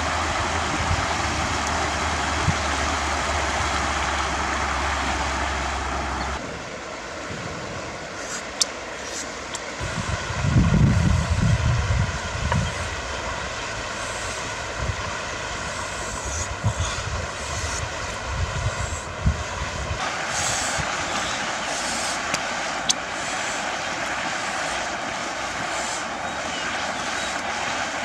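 A steady rushing noise, which changes character twice at cuts, with a few sharp snaps and, about ten seconds in, a couple of seconds of low knocking as sticks are handled by the campfire.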